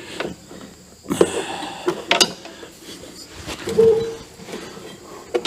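Metal parts of a lawn tractor's mower-drive pulley assembly being worked into place by hand: a few sharp clanks about a second and two seconds in, and a brief creak about four seconds in.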